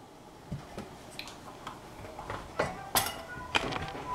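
Scattered light clicks and taps of kitchenware being handled around a stainless steel saucepan, with a sharper knock about three seconds in.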